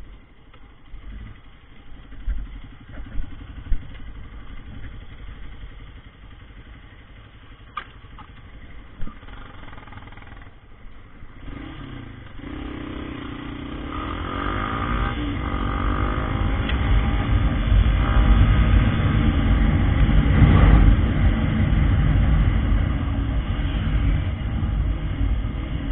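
Motorcycle engine, low and fairly quiet for about the first half, then revving up as the bike accelerates, its pitch rising and the sound growing loudest in the last third.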